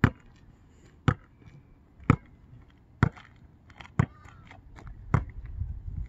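Basketball dribbled on an asphalt court: six slow, even bounces about a second apart.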